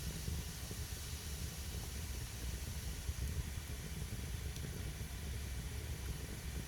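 Wet firewood burning: a steady hiss of steam and sap boiling out of the logs over a low rumble of the fire.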